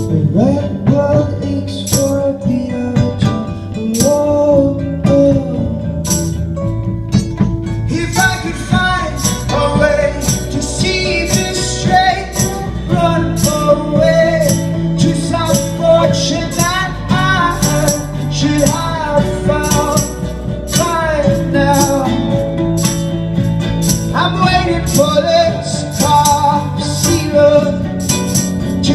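Indie rock band playing live. A lighter opening fills out with bass about seven seconds in, and the full band is playing with a melody line over it from there on.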